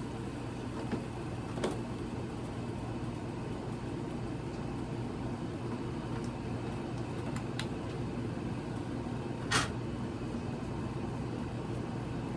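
Quorum Pinwheel ceiling fan running, a steady motor hum with a few brief clicks, the sharpest about two-thirds of the way through.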